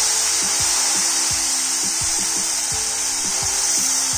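Cold milk hitting hot ghee and roasted semolina, sizzling and spluttering as a loud, steady hiss as the liquid flashes to steam.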